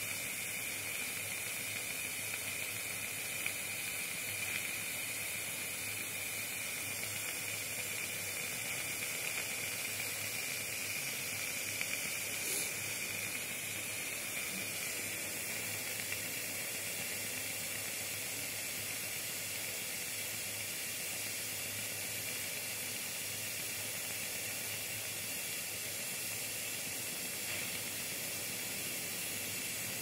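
Steam from a homemade boiler hissing steadily as it flows through a hose into a homemade Tesla valve.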